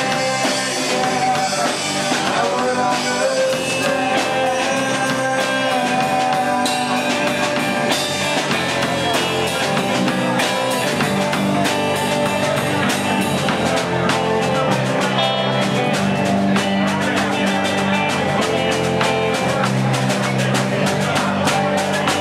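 Rock band playing live: a voice singing over electric guitar, bass and drum kit, with the drums' cymbals striking fast and steadily in the later part.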